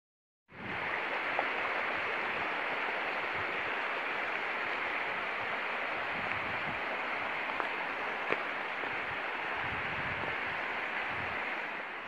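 Shallow, rocky river running over stones: a steady hiss of moving water that starts about half a second in.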